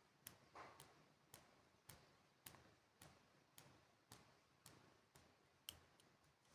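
Faint, regular ticking, about two clicks a second, over near silence.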